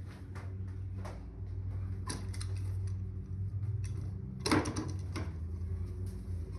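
Scattered light clicks and knocks over a steady low hum, with one louder knock about four and a half seconds in.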